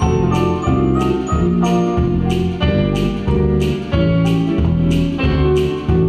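Instrumental interlude of a song's accompaniment: keyboard chords over a steady beat, a little under two beats a second.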